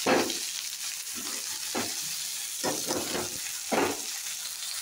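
Chopped onions and green chillies sizzling in hot oil in a metal kadhai, with about six stirring strokes through them; the loudest stroke comes right at the start and another near the end.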